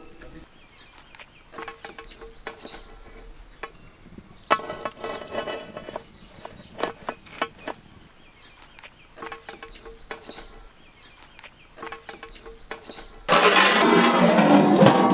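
A large metal pot lid scraped over the rim of a big cooking pot near the end, a loud grating screech with a ringing tone lasting about two seconds. Before that, only scattered light clicks and knocks over a quiet background.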